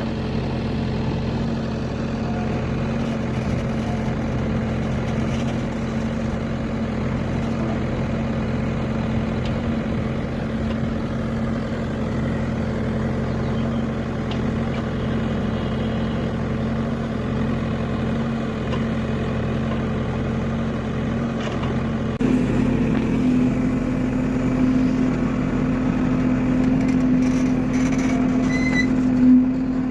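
Heavy vehicle engine idling steadily, its speed rising slightly about twenty-two seconds in.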